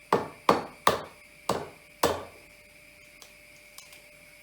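An egg knocked sharply five times against the edge of a bowl to crack its shell, the knocks coming in quick succession over about two seconds.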